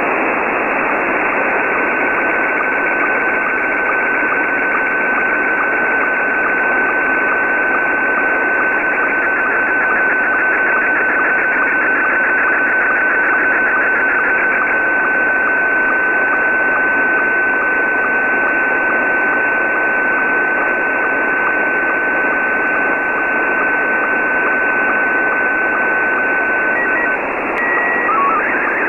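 Weak slow-scan television (SSTV) signal from a pirate shortwave station, heard in lower sideband on an Icom IC-R9500 receiver under a steady hiss of static. It is mostly a steady tone, with a fast rhythmic warble of scan lines for a stretch in the middle. Near the end comes a short run of beeps at different pitches, the header tones that start the next picture, and then the scan-line warble resumes.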